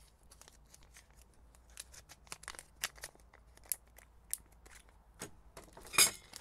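Small clear plastic bag crinkling as it is handled and opened by hand: a scatter of short, sharp crackles, the loudest one about six seconds in.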